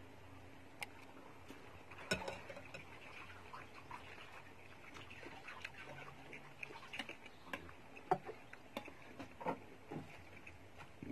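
Close-up eating sounds: chewing a large meatball, with irregular clicks and taps of a metal fork and spoon against the soup bowl as the meatballs are cut.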